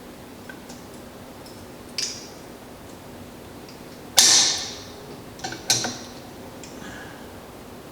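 Pliers and a steel cotter pin clicking and clinking against metal, a few scattered clicks with one louder clink about four seconds in that rings briefly. A faint steady hum runs underneath.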